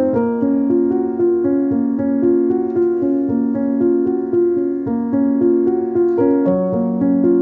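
Background piano music: a melody of evenly paced notes over held lower notes.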